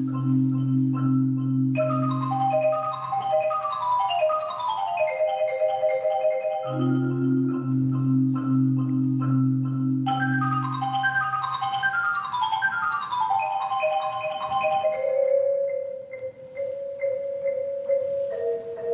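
Marimbas playing together: low notes held as rolls under fast descending runs of higher notes, twice, then a slower line of mid-range notes near the end.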